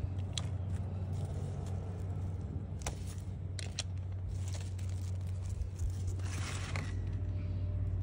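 Pechay (bok choy) being picked by hand: a few sharp snaps of stems, around three seconds in and again just under four seconds, and a rustle of leaves a little past six seconds, over a steady low hum.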